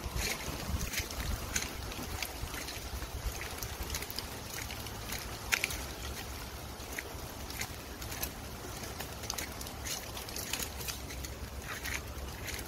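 Wet-weather outdoor ambience: a steady hiss with a low wind rumble on the microphone and scattered light ticks and splashes at irregular intervals, the sharpest about five and a half seconds in.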